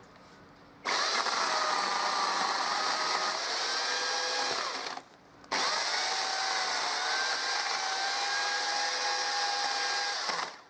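Chainsaw fixed in a cutting jig, running as it cuts branches laid on its chain, its pitch wavering under the load. It runs for about four seconds, stops briefly about five seconds in, then starts again for another five seconds and cuts off near the end.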